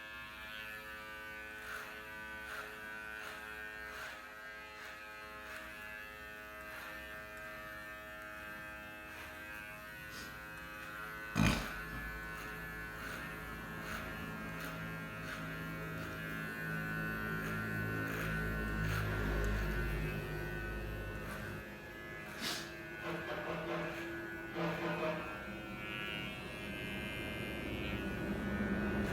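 Cordless Codos hair clipper, fitted with an upgraded motor and battery, buzzing steadily. There are small clicks throughout and a sharp knock about 11 seconds in and again about 22 seconds in.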